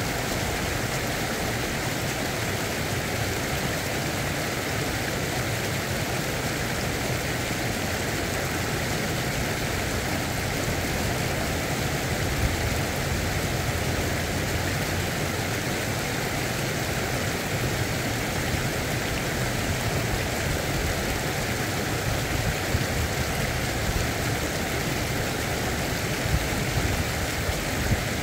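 Steady rushing of shallow stream water running over rocks and a low weir, with a low rumble underneath and a few small ticks in the second half.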